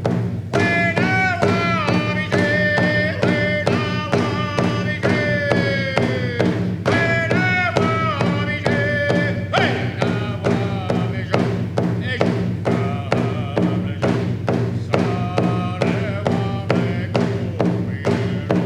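Music with a steady, driving beat under a melody that slides up and down in pitch.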